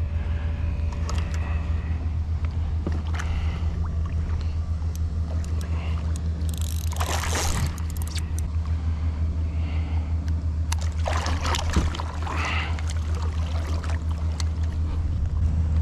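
A boat motor running steadily with a low hum. Two brief noisy rustles come about 7 and 11 seconds in.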